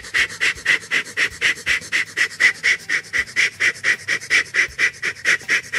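Steam locomotive chuffing sound effect: a steady run of quick, even puffs, about four a second, for an engine puffing along at speed.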